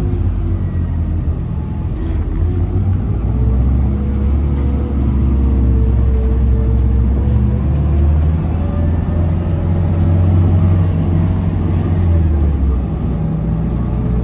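Steady engine drone and road rumble heard from inside a moving vehicle, loud and low, with a slight rise and fall in the engine tone.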